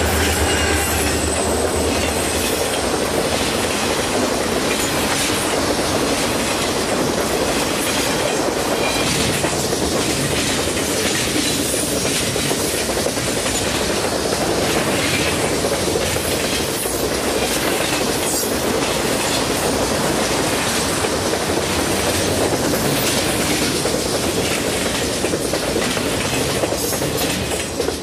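Freight train passing at speed close by. An EMD diesel locomotive's engine drones for the first couple of seconds as it goes by, then a long string of freight cars rolls past with steady wheel rumble and clickety-clack over the rail joints. The noise drops away at the very end as the last car clears.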